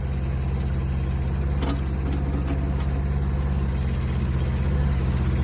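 Small diesel engine of a Digmaster DM200 mini excavator running steadily with an even, fast low pulse, with one faint click partway through.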